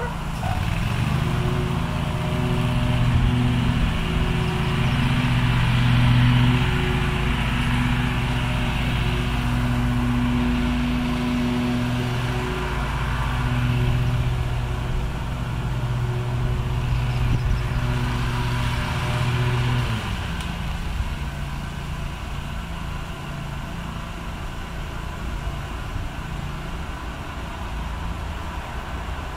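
A motor engine running steadily with a low hum, starting about a second in and stopping about two-thirds of the way through; a low rumble remains after it.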